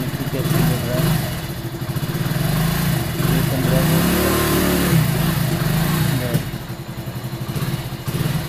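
Hero Splendor Plus's single-cylinder four-stroke engine running and revved with the throttle: a short rev about half a second in and a longer one from about three to six seconds in. It then settles back to a steady idle.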